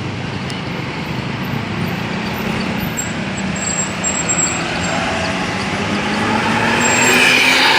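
Bus engine running under a rushing whoosh from its 'jet' exhaust, growing louder toward the end as the bus comes closer.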